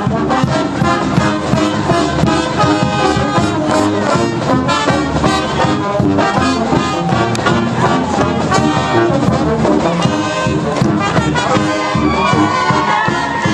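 Brass pep band playing an upbeat tune on sousaphones, trombones and trumpets, with a steady beat.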